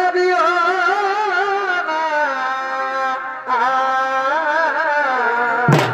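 Live Purulia chhau dance music: a loud, continuous melody that wavers and slides between held notes. Drum strikes come in just before the end.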